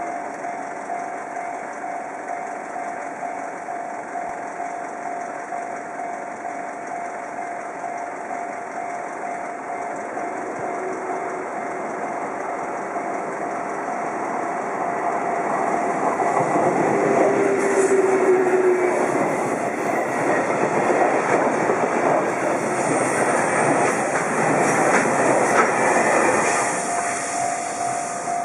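A level-crossing warning signal rings steadily while a JR Freight EF65 DC electric locomotive and its train of container flat wagons approach and pass close by. The train grows louder and runs loudest with clacking wheels from about halfway through until near the end, drowning out the crossing signal, which is heard again as the noise eases.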